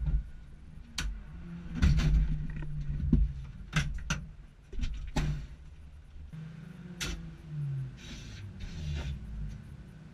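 Inside a small car's cabin, the engine runs low and uneven at idle while a series of sharp knocks and clunks sound, as the driver gets out of his seat. There are two short hisses near the end.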